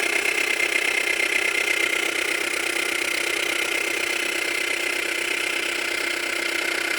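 Subaru Tribeca B9's EZ30 3.0-litre flat-six engine running steadily, with a rapid knock. The knock appeared from cold, stays when the engine is warm and grows with revs; the owner suspects the timing chain tensioners.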